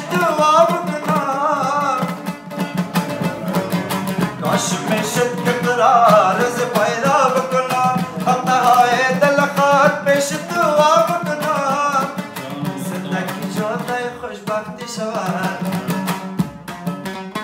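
A man singing a slow, ornamented Afghan song over a strummed dambura, the long-necked two-string Afghan lute, which keeps up a steady low drone. About twelve seconds in the voice drops away and the dambura plays on alone.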